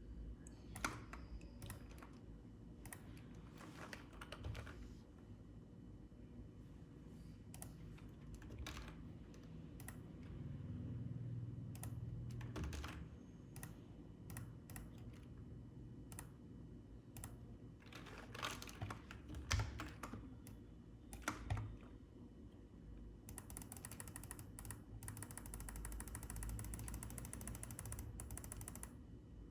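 Faint computer keyboard taps, scattered irregular clicks of keys being pressed, with a stretch of rapid continuous clicking near the end.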